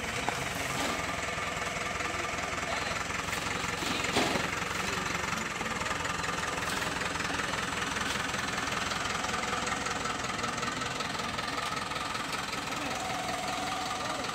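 Engine of a red light-duty cargo truck running steadily with a rapid, even beat as the truck moves slowly past.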